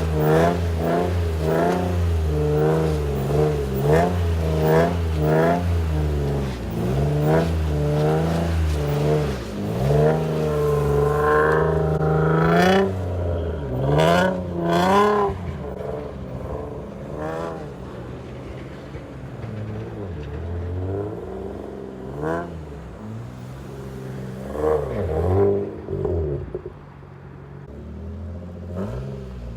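Infiniti G35's VQ35DE V6, through test pipes, an aftermarket cat-back exhaust and a leaky Y-pipe, revving hard with quick rises and falls over and over, then one longer climb. A few sharp cracks follow, and the engine settles into quieter running with only occasional revs.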